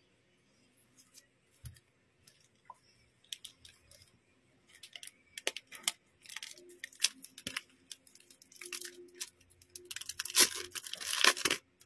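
Clear plastic packaging crinkling and rustling as it is handled and pulled open. The sound is scattered at first and grows louder and denser near the end.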